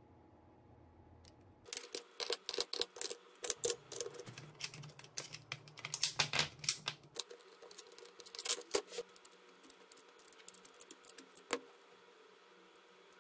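18650 lithium-ion cells clicking and rattling as they are handled and pushed into the plastic slots of a multi-bay battery charger. A quick run of sharp clicks starts about two seconds in and thins to scattered clicks later on.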